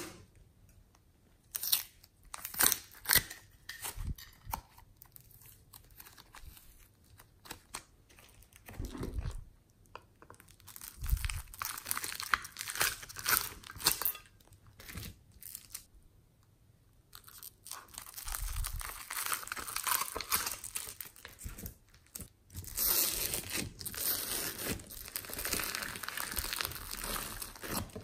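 Hands kneading and stretching glossy slime with clay and foam slime mixed in, giving sticky crackles, pops and crunches in irregular bursts. It turns into a denser run of crackling in the last third.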